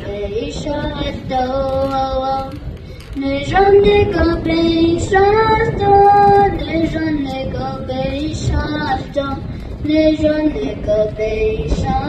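A young girl singing a song in Navajo, one solo voice holding long notes that glide up and down between pitches.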